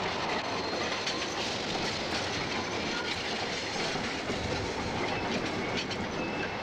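Articulated tram passing close by, its wheels running on street rails with scattered clacks over a steady running noise.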